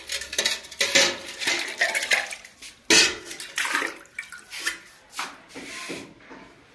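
Irregular rustling and scraping bursts, with the clatter of a steel milk can's lid and wire handle as the can is picked up and handled.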